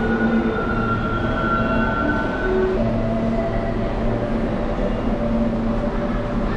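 New York City subway train running: a steady rumble with a few held whining tones.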